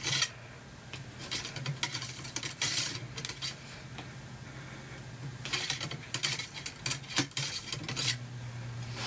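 A cleaning rod runs an oiled patch through a 30-30 lever-action rifle's barrel: scattered scraping and light metal clinks, in short bunches about a second apart, over a low steady hum.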